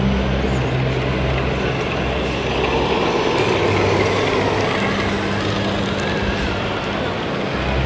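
Low, steady engine-like drone from a radio-controlled scale crawler, its pitch shifting a few times, over the dense noise of a busy hall.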